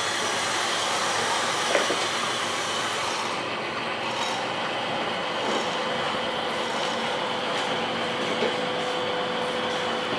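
Steady rolling, grinding noise of a boat-launching cradle on slipway rails, hauled by steel wire rope, with a faint steady whine coming in about halfway through.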